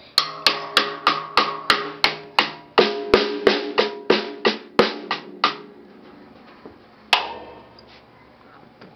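A toddler beats a drum kit with one drumstick, about three strikes a second, each ringing briefly, for about five seconds. Then the strikes stop, and one last strike comes about seven seconds in.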